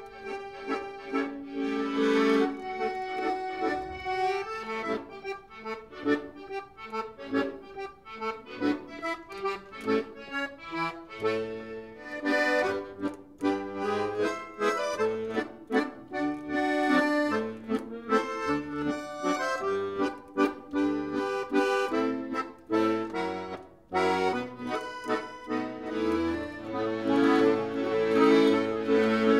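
Piano accordion played solo: a melody of many short notes over bass notes and chords, with held chords in the last few seconds.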